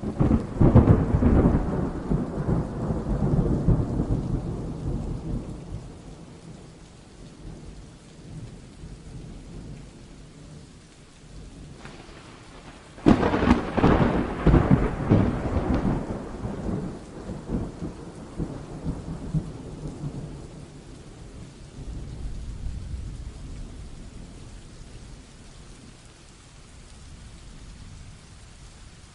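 Thunderstorm: a thunderclap cracks suddenly at the start and rumbles away over several seconds, and a second sharp clap about thirteen seconds in rolls off more slowly, with a fainter rumble later. Steady rain falls throughout.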